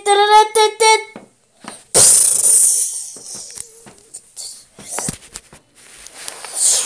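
A child's voice holds a wavering high note for about a second. Then a loud hissing burst starts suddenly and fades over about a second and a half, a few clicks follow, and another hissing burst comes near the end.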